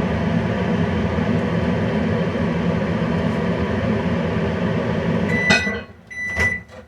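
Small microwave oven running with a steady hum, which stops about five seconds in. A sharp click comes as it stops, then the microwave's short high end-of-cycle beeps sound.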